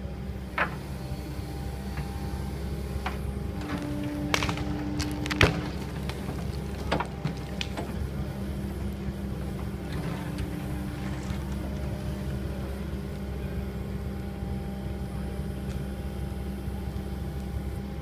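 Kobelco ED160 excavator's diesel engine running steadily under load as it digs out a tree stump, with a brief whine twice and several sharp knocks from the bucket and roots, the loudest about five and a half seconds in.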